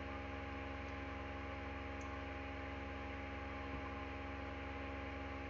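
Steady electrical hum with several evenly spaced tones, over a faint hiss: background room and recording noise with no other event.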